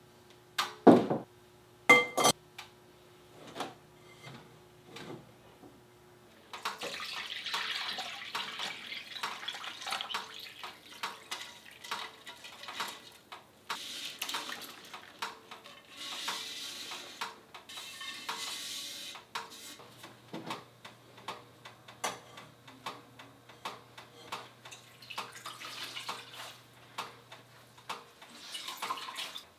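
Two sharp clinks against a pot about a second apart. Then water sloshing and dripping, with many small knocks, as wool yarn is worked in a dye bath.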